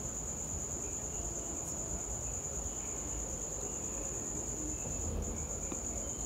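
A steady high-pitched tone with a brief break about five seconds in. Underneath it are a few faint light clicks of a steel spoon against the steel bowl and plate as batter is spooned onto bread.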